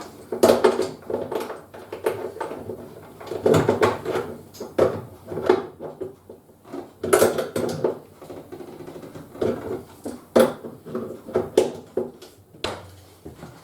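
Irregular metallic clinks and clatters of plumbing fittings and tools being handled while a service valve is fitted to the pipework.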